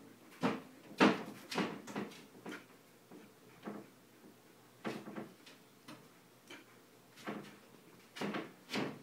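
A pet's laboured breathing: short, sharp, noisy breaths or snorts coming irregularly, about a dozen of them, the loudest about a second in. They are the sign of a breathing problem being recorded for a vet.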